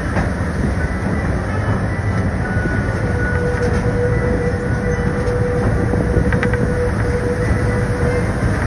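Passenger train running along the track, heard from aboard: a steady rumble of wheels and cars, with a steady high tone from about three to eight seconds in.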